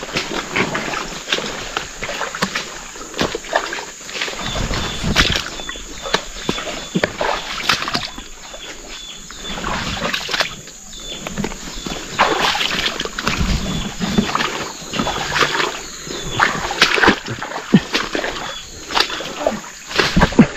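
Footsteps wading through a muddy swamp, water sloshing and splashing at irregular intervals. A faint high chirp repeats in the background.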